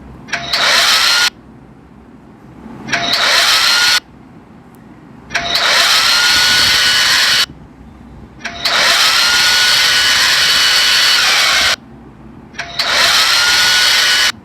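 Prank app's electric-motor sound effect, like a power drill: it spins up with a rising whine, then runs steady at full speed. It is played five times, one to three seconds each, with short gaps between.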